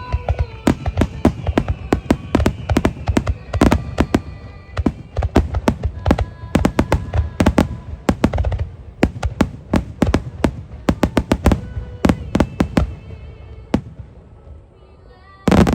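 Fireworks going off in rapid succession: dense crackling bursts and bangs that thin out near the end, then a loud bang at the very end, with music playing along.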